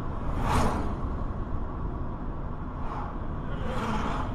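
Steady low road and engine rumble inside a moving car as the dashcam records it, with a brief rushing whoosh about half a second in as a tanker truck passes close in the oncoming lane.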